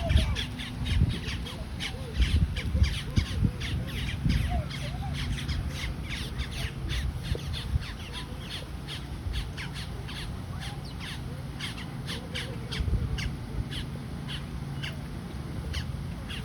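Crows cawing: a long run of short, harsh calls repeated throughout.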